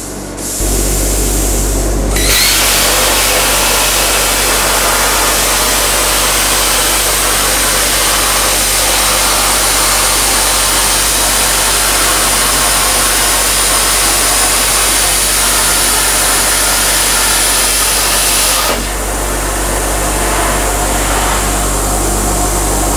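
CNC plasma cutter's torch cutting through a metal plate. The arc fires about two seconds in and holds a loud, steady hiss with a faint high whistle for about sixteen seconds, then stops. A quieter steady hiss and hum carry on after the cut ends.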